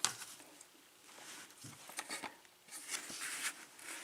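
Faint scattered clicks and light scraping of small metal lock-picking tools being handled at a lock clamped in a vise.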